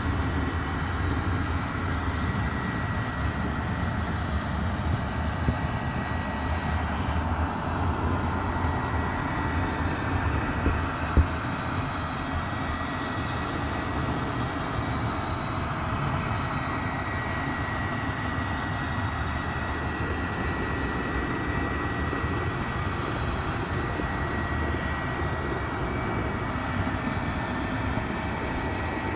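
Steady running rumble of a moving train, with a faint high-pitched whine over it and one short knock about eleven seconds in.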